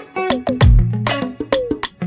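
Background music: plucked guitar notes over a steady beat with deep kick drum thumps.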